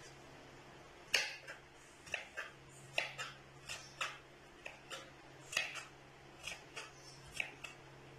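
Kitchen knife chopping watermelon rind into small cubes on a wooden cutting board: a run of sharp, irregular taps, about two a second, as the blade cuts through and strikes the board.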